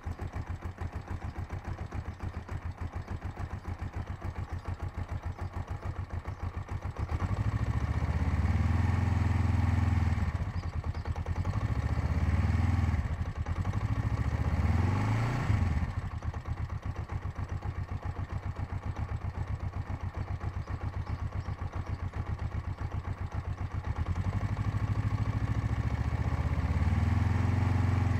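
Kawasaki GPZ500's parallel-twin engine idling steadily, then revved up and let fall back to idle four times. The owner is trying to trace a knock that he places in the gearbox.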